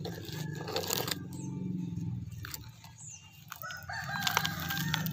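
A rooster crowing, starting about three and a half seconds in, after a few faint clicks near the start.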